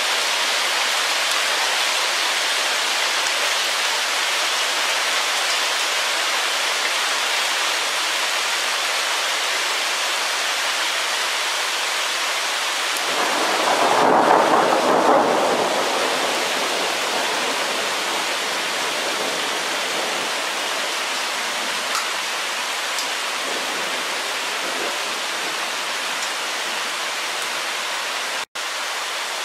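Hail and rain pelting down in a steady hiss during a thunderstorm, with a rumble of thunder swelling up for a few seconds about halfway through.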